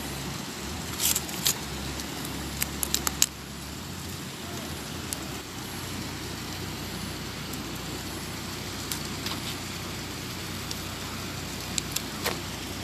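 Plastic food packaging being handled: several short sharp clicks and crinkles, most of them between about one and three seconds in and a couple more near the end, over a steady rushing hiss.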